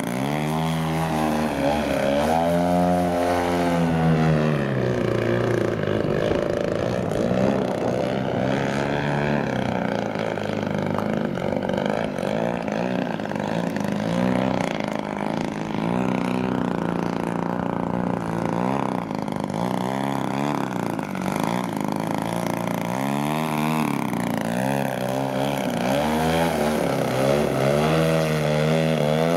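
Large radio-controlled airplane in flight: a steady motor-and-propeller drone whose pitch swoops up and down as the plane makes close passes, several in the first few seconds and again near the end, with a more even drone while it is farther off in between.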